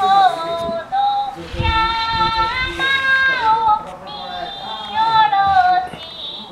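A dog 'singing': a high, howl-like voice holding notes and sliding between them in a few short phrases.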